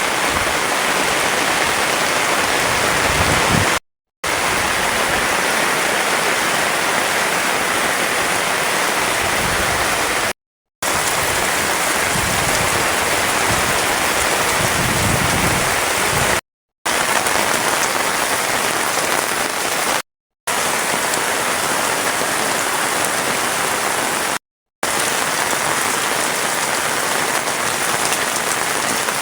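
Heavy rain falling, a dense steady hiss, broken off by five short silences.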